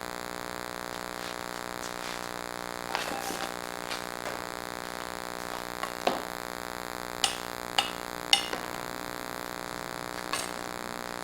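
Steady electronic hum made of many fixed tones, noise from a faulty camera recording, with a few sharp light clicks scattered through it.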